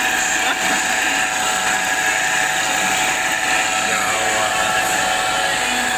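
Belt-driven rotary disc cutting machine running steadily: a constant mechanical hum with several held steady tones from the spinning cutter and its drive.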